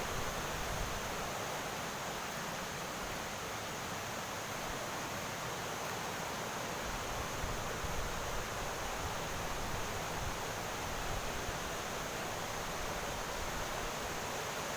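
Floodwater of a hill river rushing and pouring over a drop, a steady, unbroken rush of water.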